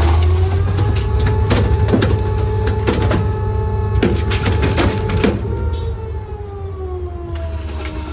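Small rear-loader garbage truck's hydraulic can tipper dumping a litter can into the hopper, the engine revved up to drive the hydraulics with a steady whine and about eight metal clanks as the can is knocked at the top of the dump. About five and a half seconds in, the revs fall back toward idle as the can is lowered.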